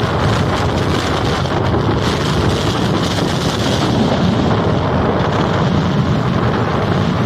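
Rough sea surf breaking and washing in a steady loud rush, with strong wind buffeting the microphone.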